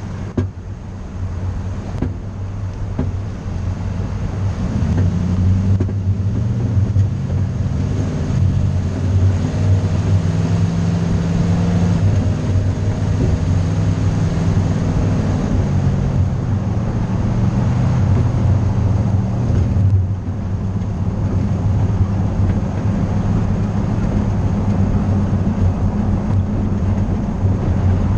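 Engine of a moving vehicle running under way, with wind and road noise. Its pitch rises for several seconds as it speeds up, and the level dips briefly about two-thirds of the way through.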